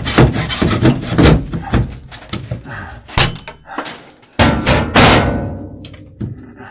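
Black plastic drain tee being wrenched and knocked loose from the overhead drain piping: a run of loud hollow knocks and thumps of plastic against pipe, with the loudest cluster about five seconds in, then fading.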